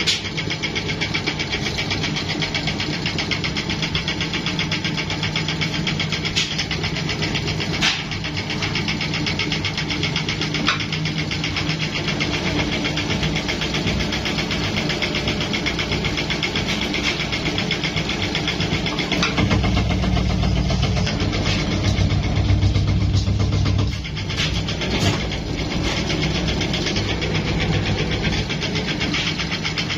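Sheet-metal press forming a steel tray, its motor running with a steady machine hum. For about four seconds past the middle it grows louder with a heavier low hum, and a few sharp metallic clicks come through.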